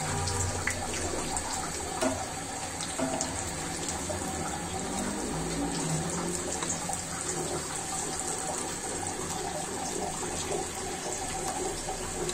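Lentil fritters (piyaju) deep-frying in hot oil in an iron karahi: a steady bubbling sizzle, with a sharp click about two seconds in.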